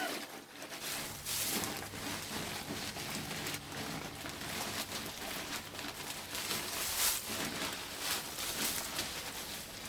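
Loose pine shavings being dumped and spread on a coop floor: a continuous dry rustling with many small crackles and ticks.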